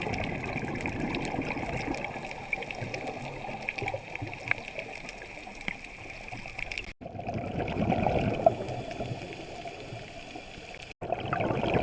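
Underwater bubbling and gurgling, typical of a scuba diver's exhaled regulator bubbles, swelling and fading. The sound breaks off abruptly twice, about seven and eleven seconds in.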